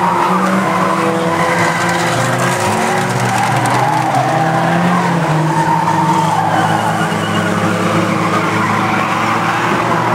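Engines of several banger-racing cars running together in a race, a dense steady din whose pitches rise and fall as the cars lap.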